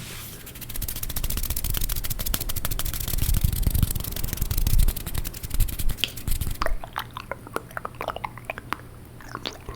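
Close-miked wet mouth sounds with water: for about six and a half seconds a dense, rapid crackling of water being swished and bubbled in the mouth, then scattered separate wet clicks and smacks of tongue and lips.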